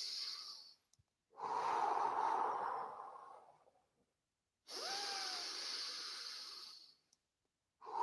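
A man taking slow, deep breaths in and out, each breath about two seconds long with short silent pauses between.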